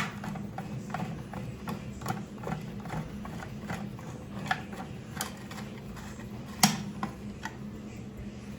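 Screwdriver tightening a screw on a toilet flush cover plate: a run of irregular small clicks and ticks, a few a second, with one louder click about two-thirds of the way through.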